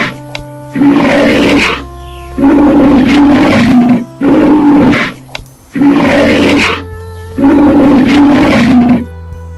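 A big cat roaring repeatedly: a series of about six loud roars, each about a second long, with short pauses between them.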